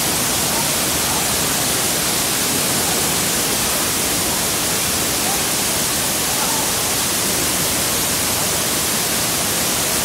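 Tall waterfall plunging into its pool: a loud, steady, unbroken rush of falling water.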